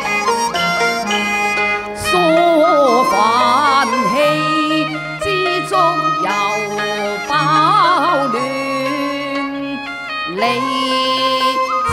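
Cantonese opera accompaniment ensemble playing an instrumental interlude between sung lines: a melody with wide vibrato over sustained lower notes.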